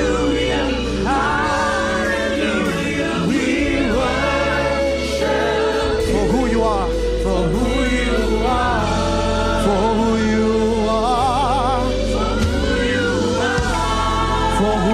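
Gospel worship music: a choir singing with a band over a steady bass, with wavering held vocal notes in the last few seconds.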